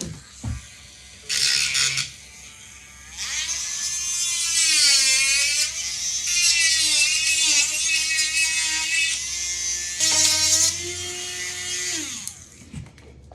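Small handheld electric sanding tool running, its motor whining. A brief burst comes about a second in, then a longer run from about three seconds in whose pitch dips and recovers as it is pressed against the parts being sanded. It winds down near the end.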